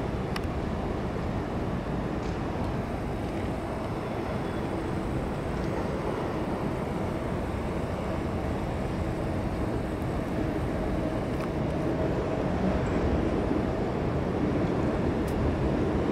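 Steady low rumble of city and riverside ambience, a little louder near the end.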